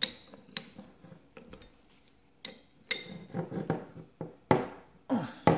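Sharp metal clicks and clinks as a red AN wrench is fitted onto an aluminium AN fitting held in a socket, followed by softer scraping and handling sounds as the fitting is tightened.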